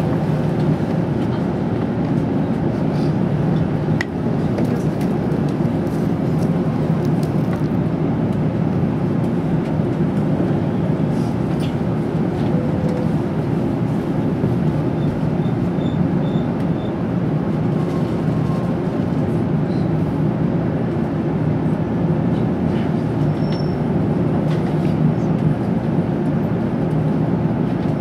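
Steady low running rumble of an N700-series Tokaido Shinkansen car, heard from inside the passenger cabin while the train is moving.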